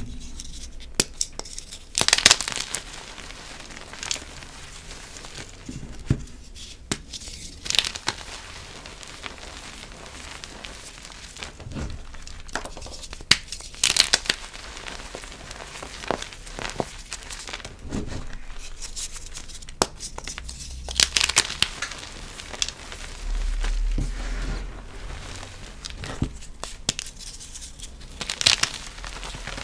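Reformed blocks of gym chalk being crushed, giving loud crisp crunches every few seconds with small crackles and crumbling between them.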